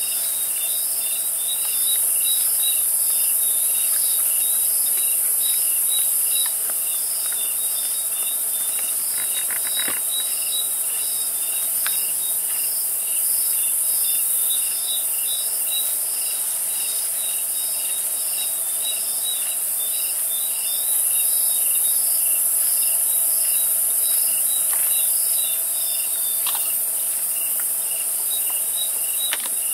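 Night chorus of crickets: a continuous very high trill that swells and drops in level every few seconds, with a second insect pulsing steadily about twice a second underneath.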